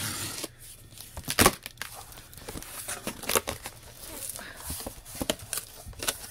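Scissors slitting the packing tape on a cardboard box, with tape tearing and cardboard scraping in short, irregular strokes. The loudest is a sharp one about one and a half seconds in.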